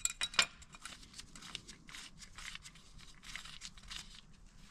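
Quick irregular clicks and rustling, several a second. The loudest few come in the first half second, and the rest are fainter.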